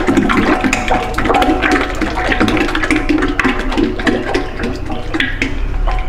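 Lubricating oil poured from a hand-held container into a drum, gurgling and splashing; the pouring stops near the end.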